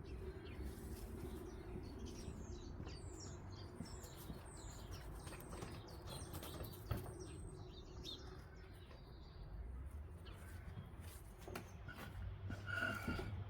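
Small birds chirping and twittering outdoors, with a quick run of short falling notes in the first few seconds and a louder call near the end, over a steady low rumble.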